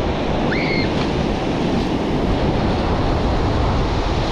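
Ocean surf breaking and washing up the sand, with wind buffeting the microphone. A short high chirp sounds about half a second in.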